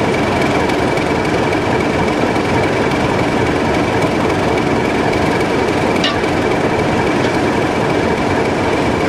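Locomotives at close range: a steam locomotive stands with steam hissing steadily, mixed with a diesel shunter's engine running. A thin, steady high tone runs through it.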